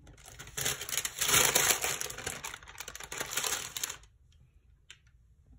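Pen scratching across planner paper while a line of handwriting is written, a dense scratchy rustle that stops about four seconds in, leaving only a few faint ticks.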